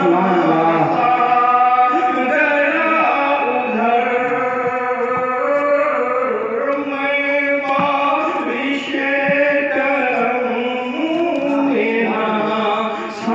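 A man's voice chanting a melodic recitation into a microphone, with long held notes that slide slowly up and down.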